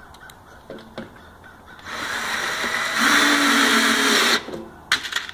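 Power drill driving a wood screw into the wood, the motor running steadily for about two and a half seconds after a few light handling clicks, then a sharp click near the end.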